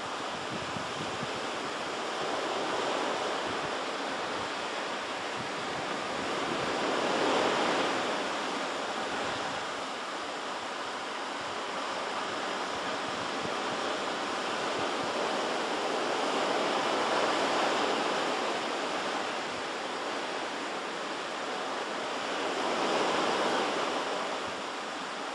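Pacific Ocean surf washing onto the shore: a steady rush that swells louder three times, about a third of the way in, past the middle and near the end, as waves break.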